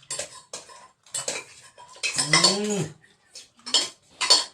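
Plates and eating utensils clinking and scraping in a string of short, sharp knocks during a meal. About two seconds in, a person makes a drawn-out voiced sound, rising then falling in pitch.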